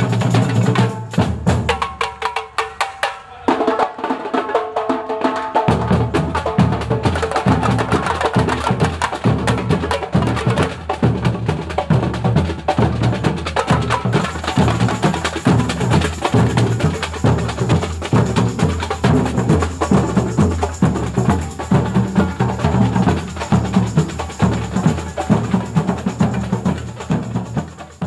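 Samba percussion band (batucada) playing a fast, driving rhythm on snare drums and tamborims. The deep bass drums drop out about a second in and come back in about six seconds in.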